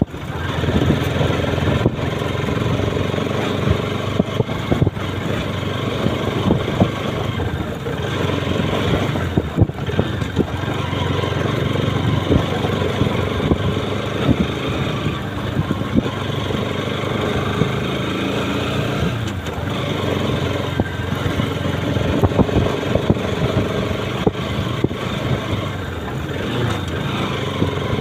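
Motorcycle engine running steadily while the bike is ridden over a rough, rutted dirt track, with frequent short knocks and rattles from the bumps.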